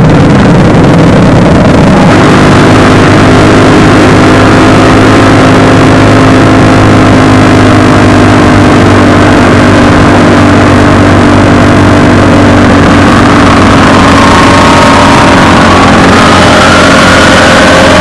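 Motorcycle engines running loudly and steadily, heard from a moving motorcycle riding in a group. Toward the end, an engine's pitch rises as it speeds up.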